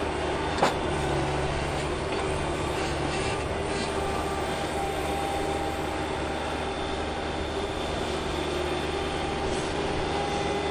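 Skid steer loader running steadily under load, its engine hum with a steady whine over it, and one sharp knock about half a second in.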